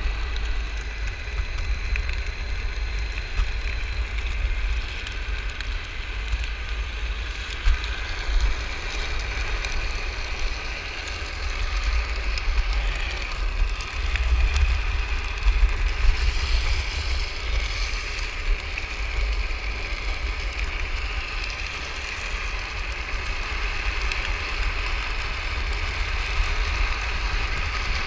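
Electric drift trike with a Magic Pie 3 hub motor riding along an asphalt street: a steady multi-tone whine from the hub motor over the rolling noise of the wheels on the road. Heavy wind buffeting on the camera microphone runs underneath.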